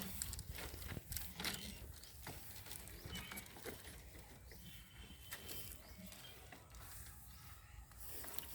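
Goats shuffling about in a farm pen: scattered clicks and rustles over a low, steady rumble.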